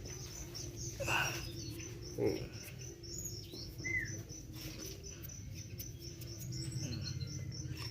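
Birds chirping, with a steady run of short high-pitched pulses, several a second, and a single short falling chirp about four seconds in.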